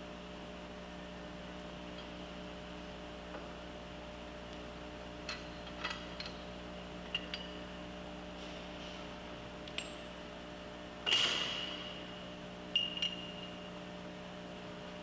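Steel wrench and hydraulic puller fittings clinking together: a string of sharp metallic clinks, each with a short ring, the loudest about eleven seconds in. A steady electrical hum runs underneath.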